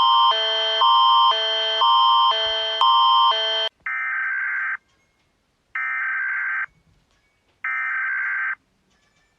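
Emergency Alert System alert audio: an electronic two-note alarm tone switching high and low about twice a second, then three buzzy one-second bursts of EAS header data tones, each followed by about a second of silence.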